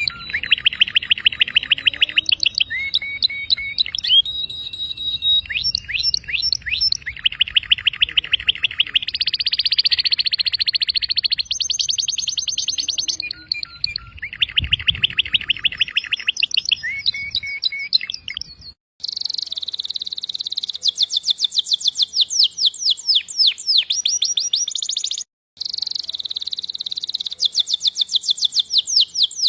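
Canary singing a long, continuous song of rapid trills and rolls of repeated notes, switching every second or two from one tour to the next. The song breaks off briefly about two-thirds of the way in and again shortly after.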